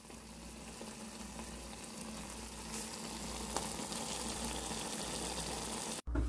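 Chicken makhani gravy sizzling in a clay handi on the stove, a steady hiss that grows louder and cuts off abruptly near the end.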